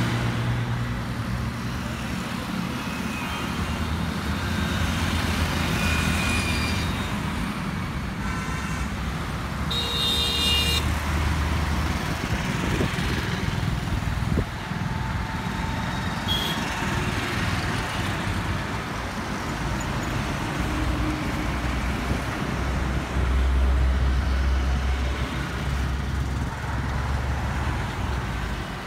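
Road traffic passing on a busy multi-lane road: motorcycles, auto-rickshaws and cars driving by with a steady mix of engine hum and tyre noise. A short vehicle horn toot sounds about a third of the way through.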